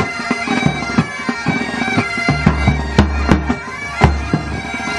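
Pipe band music: bagpipes playing a tune over their steady drones, with drum strokes. A deep bass comes in about two seconds in.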